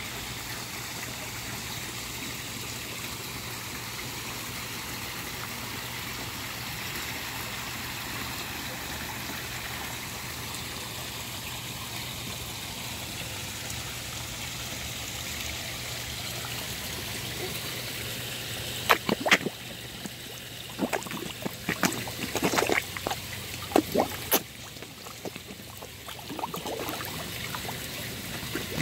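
Steady trickle of water running into a koi pond. From about two-thirds of the way in there is a string of sharp splashes and slurps as koi break the surface to gulp floating food pellets.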